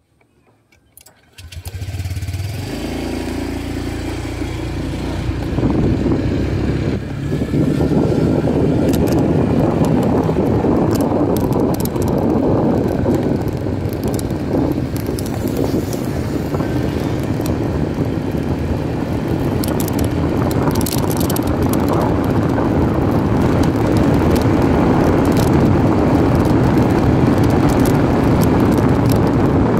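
Motorcycle ridden from the rider's seat. About a second in, the engine comes up and picks up speed as it pulls away, then runs steadily under loud wind rushing over the phone's microphone.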